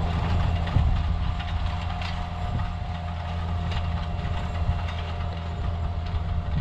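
Challenger MT635B tractor's Sisu 7.4-litre six-cylinder diesel engine running steadily while pulling a nitrogen applicator through the field, a low even rumble with a thin steady whine above it.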